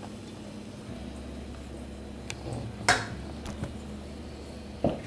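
Two sharp knocks of a stainless steel mixing bowl being handled on the counter, the louder about three seconds in and the other near the end, with a lighter click just before the first, over a low steady hum.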